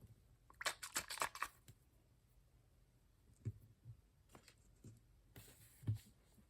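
Hands handling blind-box packaging: a short burst of crinkling and clicking near the start, then a few scattered soft taps and a brief rustle.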